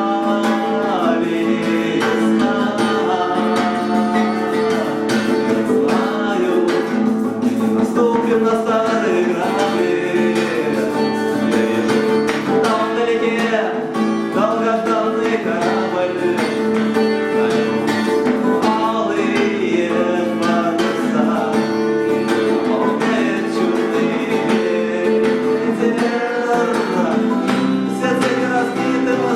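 Acoustic guitar strummed steadily, accompanying a singing voice in a song.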